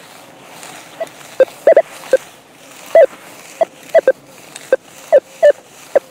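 Rutus Alter 71 metal detector sounding about a dozen short, mid-pitched beeps at irregular intervals as its coil is swept over meadow ground, a few in quick pairs. On its basic program it is chatty in real ground, signalling often.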